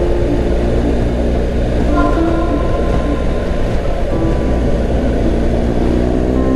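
BMW R 1250 GS Adventure's boxer-twin engine running steadily at cruising speed, mixed with wind and road noise on the bike-mounted camera microphone. Near the end the engine pitch starts to rise as the bike picks up speed.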